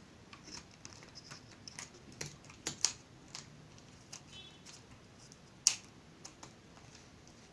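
Scattered light clicks and taps from hands handling a small balsa-stick toy crossbow and its rubber bands on a wooden tabletop, with a few sharper clicks, the sharpest about three-quarters of the way through.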